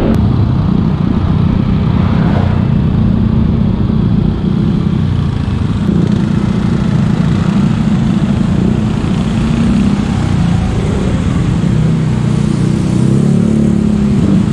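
Yamaha NMAX V2 scooter's single-cylinder engine running steadily while riding, a new engine in its break-in period, with road noise.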